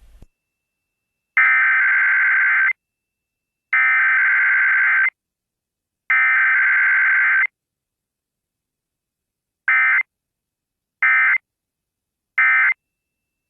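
Emergency Alert System SAME digital data tones for a Required Weekly Test: three identical header bursts of about a second and a half each, then after a short pause three brief end-of-message bursts.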